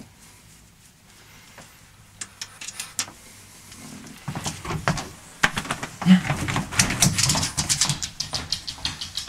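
French bulldog moving and snuffling close to the microphone, with a quickening run of sharp clicks from about two seconds in that grows dense from about four and a half seconds on.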